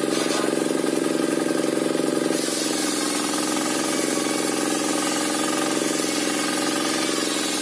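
Engine-driven circular sawmill (serkel) running at a steady pitch, its blade ripping waru (sea hibiscus) timber during the first couple of seconds as a plank is fed through.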